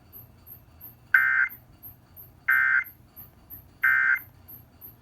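Emergency Alert System end-of-message signal: three short bursts of SAME digital data tones, a little over a second apart, marking the end of the alert.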